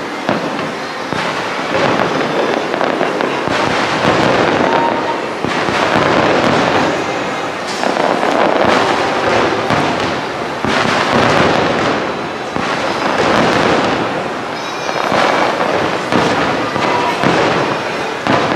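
Fireworks display: a dense run of bangs and crackling, swelling and easing in waves every couple of seconds.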